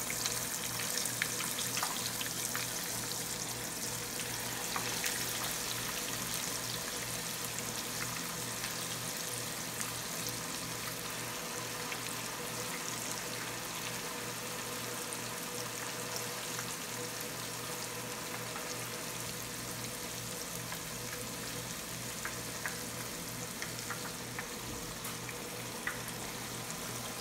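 Chicken legs deep-frying in hot vegetable oil: a steady sizzle of bubbling oil.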